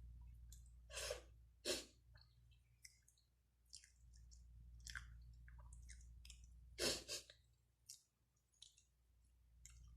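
A person eating close to the microphone: soft wet mouth clicks and smacks while chewing, with three louder smacks, about a second in, near two seconds in and near seven seconds in, over a low steady hum.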